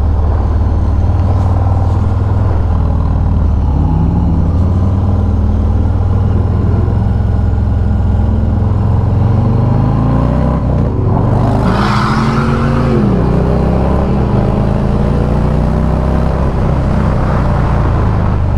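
Harley-Davidson Sport Glide's Milwaukee-Eight 107 V-twin running through a Bassani Road Rage 2-into-1 exhaust, heard from the rider's seat. The engine pitch rises several times as the bike accelerates through the gears.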